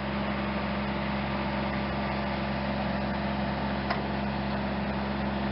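A steady, unchanging engine-like hum with a constant low pitch, and one short click about four seconds in.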